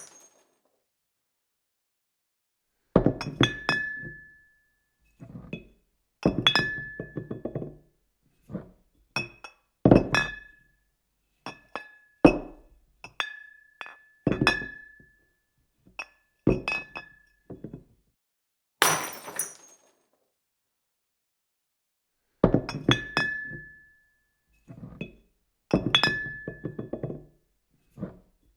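A series of separate glass impacts with silence between them: glass bottles and pieces knocked on a table, clinking with a short ringing note and rattling as they settle. About two-thirds through comes a sharp, bright burst of glass shattering.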